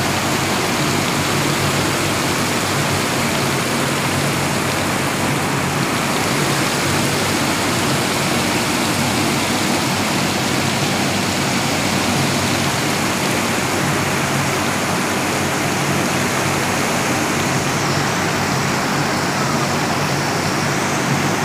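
Water pouring in sheets down a cooling tower and splashing onto the concrete basin below, a steady, unbroken rush.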